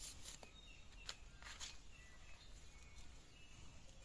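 Faint scrapes of a large knife against a slaughtered chicken's skin and feathers, a few quick strokes in the first two seconds. Birds chirp faintly in the background.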